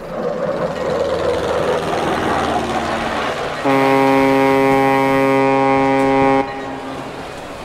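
Ship's horn sounding one long, steady blast of close to three seconds, starting about halfway through and cutting off abruptly. A rushing noise swells before it.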